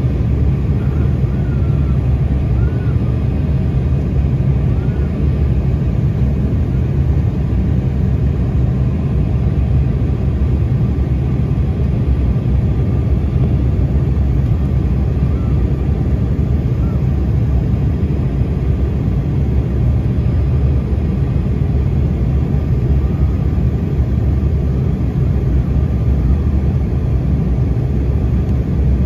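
Steady cabin noise inside an Embraer 195 airliner on its descent: an even low rumble of airflow and its GE CF34-10E turbofan engines, heard from a window seat beside the wing.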